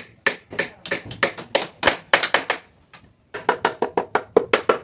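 A rapid run of hand-struck knocks on teak wood, about four to six a second, with a brief pause about three seconds in.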